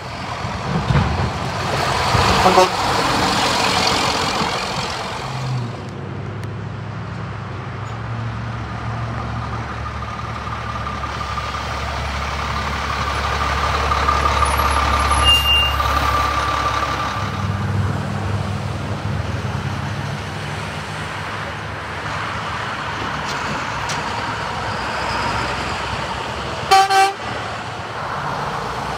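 Heavy diesel trucks driving past, the engine sound swelling and fading as each one goes by, with a short horn toot near the end.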